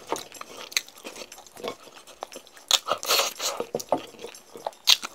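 Close-miked chewing of sauced fried chicken and rice: irregular wet crunches and mouth smacks, busiest about three seconds in and again near the end.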